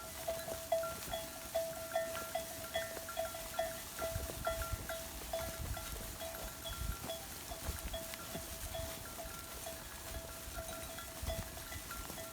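Background music: a repeating high plucked or chiming melody at a steady pace, about three notes a second, over a low rumble.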